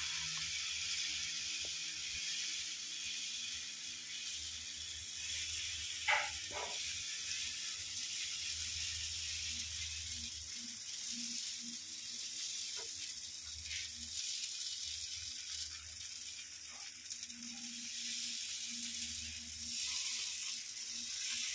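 Dal chilla batter sizzling on a hot flat pan (tawa) as it is spread with a steel spoon: a steady, fairly faint hiss, with a few brief clicks.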